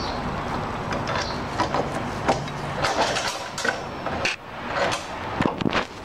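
Steel roller chain of a garage door opener clicking and rattling against the metal sprocket and rail as it is fitted by hand, many irregular clinks. A steady low hum runs underneath for the first few seconds.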